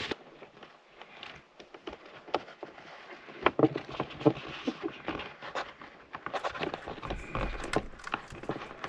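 Hands working an LED tape-light strip onto a wall close by: scattered light taps, clicks and rubbing, with a few sharper clicks about halfway through.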